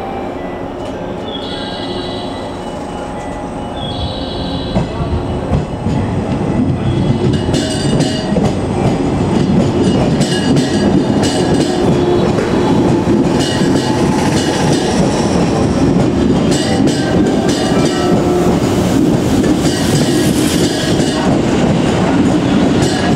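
A JR West 103 series electric train starts away from the platform and passes close by, gathering speed. Its running noise grows from about five seconds in, and from about seven seconds its wheels clack steadily over the rail joints.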